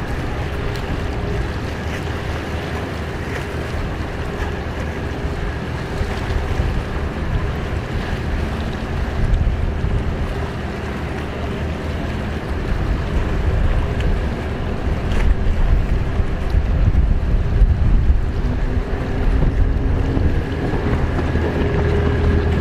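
Racing jet skis running flat out on open water: a steady engine whine over a low rumble, with wind buffeting the microphone. It gets louder in the second half.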